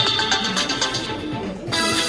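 Samsung Galaxy S22 ringtone playing from the phone's speaker: a melody of plucked, guitar-like notes. About a second and a half in, it breaks off and a different tune begins.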